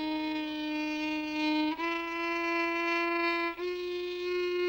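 A solo violin playing slow, long bowed notes one at a time, each held nearly two seconds and each a step higher than the last.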